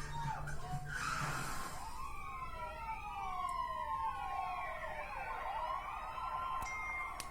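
Emergency-vehicle siren wailing, several overlapping tones rising and falling, heard from a television, after a brief rush of noise about a second in.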